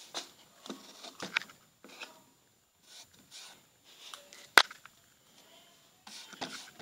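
Hands handling a plastic slime tub and rubbing and tapping on a tabletop: scattered soft rubs and small clicks with short gaps, and one sharp click about two-thirds of the way through.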